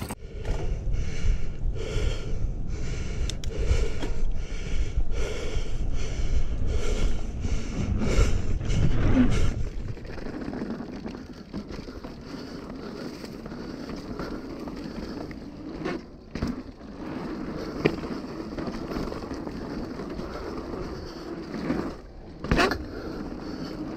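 Mountain bike rolling fast over a dirt trail: tyre and frame rumble with wind buffeting the body-mounted camera. For the first ten seconds it is paced by the rider's hard, rhythmic breathing, about one breath every 0.7 s. After that it settles into a lighter rumble with a few sharp knocks.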